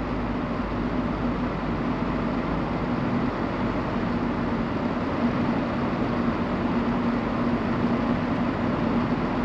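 Steady road noise heard inside a moving car's cabin: tyres on asphalt and the engine running at cruising speed, with a steady low hum underneath.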